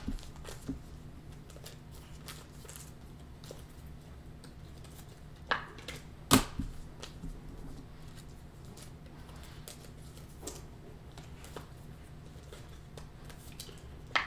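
A low steady hum broken by a handful of light, sharp clicks and taps, the plainest two about five and a half and six and a half seconds in.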